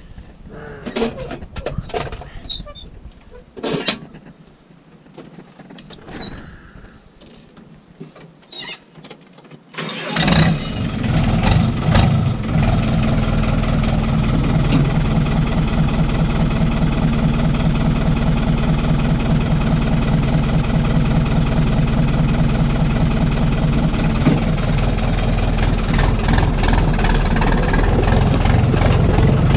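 A few clicks and knocks, then about ten seconds in a Fiatagri 70-66 tractor's four-cylinder diesel engine starts and settles into a steady idle, heard from inside the cab; it grows slightly louder near the end.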